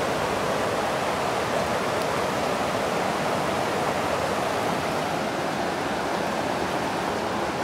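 Fast-flowing river water rushing steadily over a shallow riffle.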